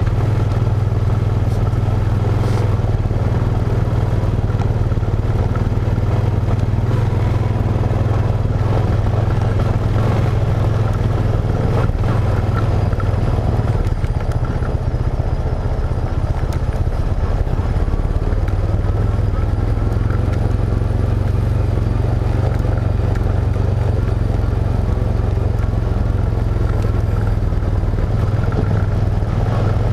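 ATV engine running steadily as it rides along a dirt trail, a loud, even low drone that barely changes in pitch.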